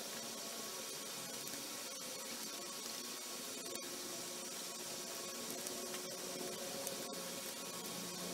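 Steady, even hiss of background noise (room tone and recording noise), with no distinct tool clicks standing out.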